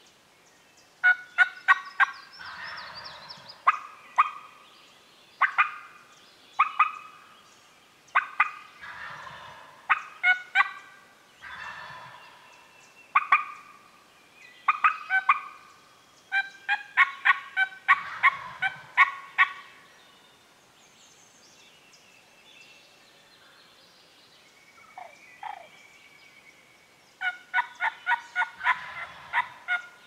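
Wild turkeys calling in repeated bouts: runs of short, sharp notes with gobbles rolling through them every few seconds. After a quieter stretch in the middle, a last run of notes comes near the end.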